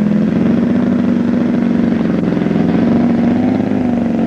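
Super Tiger ST 6000 twin-cylinder glow engine of a quarter-scale RC Hawker Hurricane running loud and steady, its pitch wavering slightly.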